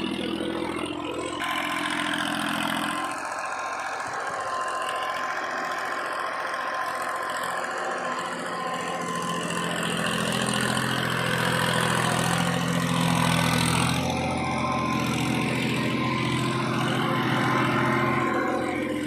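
Massey Ferguson 241 tractor's diesel engine running on a backhoe loader, its low note dropping away about three seconds in and coming back strongly about halfway through, under a steady hiss and a faint whine.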